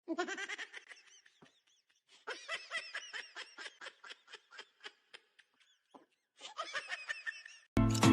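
A person laughing in quick, high-pitched bursts, in runs of several short breathy pulses. A loud blaring sound starts near the end.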